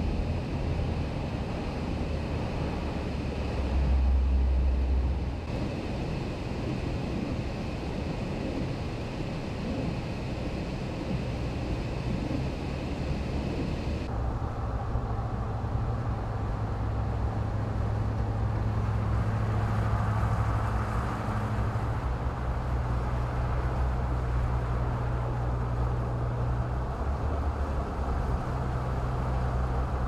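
Vehicle cabin noise while driving on a snow-covered highway in a blizzard: steady engine and tyre rumble. A louder low rumble swells for about a second and a half around four seconds in, and the noise changes abruptly about halfway through.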